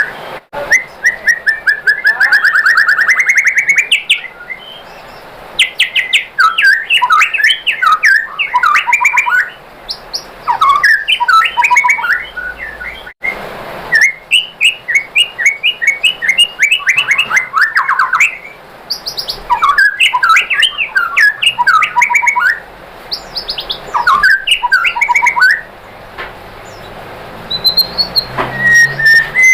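White-rumped shama (murai batu) singing loudly, in phrases of rapid, varied whistled notes and trills, each lasting a second or two, with short pauses between them.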